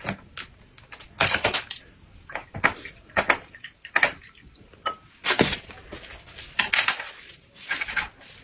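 Irregular clicks, knocks and rustles of tableware being handled: chopsticks, dishes and a small container lid, about ten sharp sounds at uneven intervals.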